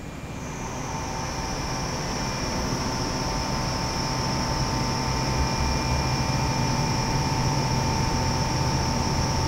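A machine starting up and running steadily: a droning hum with a high whine that comes in just after the start, growing louder over the first few seconds and then holding level.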